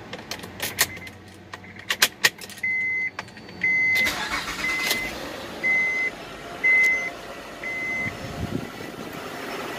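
A few clicks, then a dashboard warning chime beeping six times about once a second while the 2007 Honda Pilot's 3.5-litre V6 cranks, catches about four seconds in and runs at idle. This is the first start after the failed alternator was replaced.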